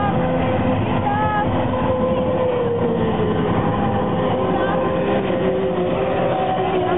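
Offshore racing powerboats' engines droning across the water, a steady loud drone whose pitch sinks slowly through the middle.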